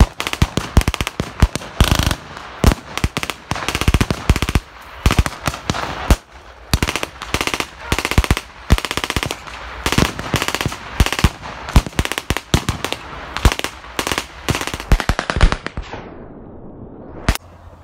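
Blank-firing battle gunfire: a dense mix of single rifle shots and rapid machine-gun bursts, cracking one after another. Around 16 s it fades away, followed by one last lone shot.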